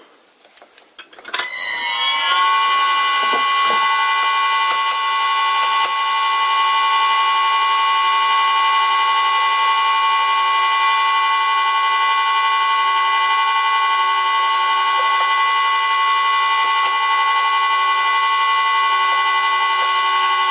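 Metal lathe starting up about a second in, its pitches settling within a second as it comes up to speed, then running with a steady high-pitched whine of several tones while a center drill in the tailstock chuck is fed into the spinning workpiece.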